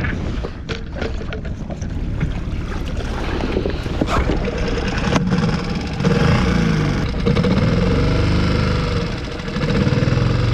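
Small outboard motor on a solo skiff running under way, with wind on the microphone and water splashing; handling knocks in the first few seconds, then the motor grows louder about six seconds in, its pitch rising and falling.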